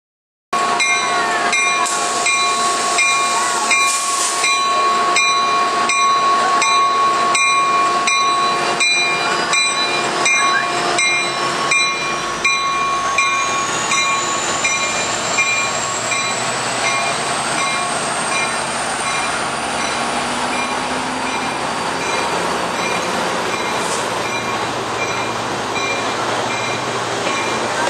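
Amtrak Pacific Surfliner train at the platform, with a bell clanging steadily about twice a second and the train's running noise underneath. The clanging is strongest in the first half. A high whine rises slowly in pitch midway.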